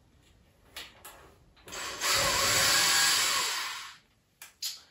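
A small motor-driven tool starts with a loud rushing whirr, runs for about two seconds, then winds down and stops. Light knocks come before and after it.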